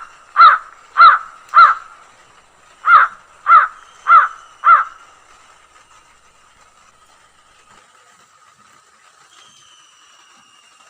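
Crow cawing: two runs of four harsh caws, about two a second, in the first half.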